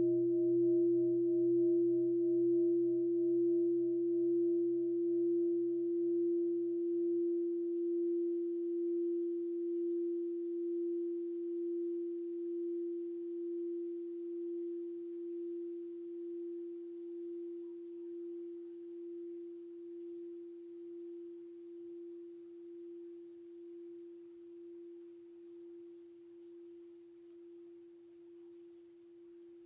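Large bowl-shaped meditation-hall bell ringing on after being struck, invited as the call to come back to mindful breathing. One steady hum with a slow, regular wavering fades gradually throughout, its lower and higher overtones dying away within the first ten seconds or so.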